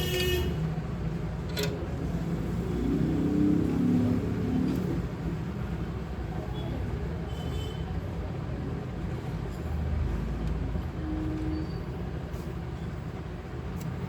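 Steady low rumble of background road traffic, with a brief high tone about seven seconds in.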